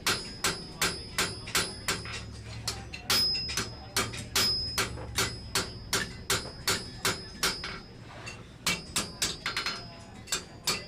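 Hand hammer striking hot steel on an anvil, about two blows a second, each with a ringing note. A short pause comes about eight seconds in, then quicker blows.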